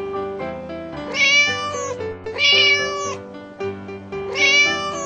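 A domestic cat meowing three times, each meow lasting about a second, over background music.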